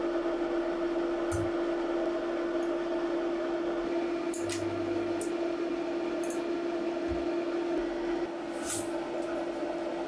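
Steady electrical hum from a home-built microwave-transformer spot welder standing powered on, with a few short faint clicks as the copper electrodes are set on a nickel strip over a battery cell.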